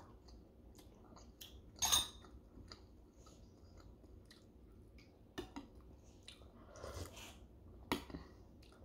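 People chewing and eating, with scattered small clicks and taps; the sharpest click comes about two seconds in.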